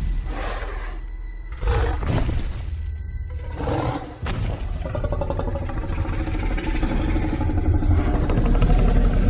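Film soundtrack: a giant dinosaur (the Indominus rex creature sound) gives three short, heavy breaths about a second and a half apart, then a low, sustained growl that builds in loudness. A deep, rumbling film score sits underneath.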